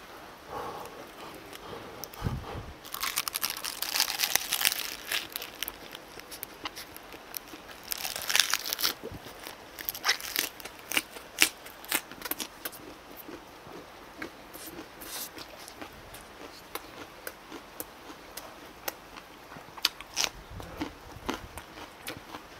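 Close-up mouth sounds of someone eating a raw napa cabbage leaf wrap with rice: crisp crunching and crackling as the leaf is bitten and chewed, loudest a few seconds in and again about eight seconds in, then softer chewing with scattered clicks.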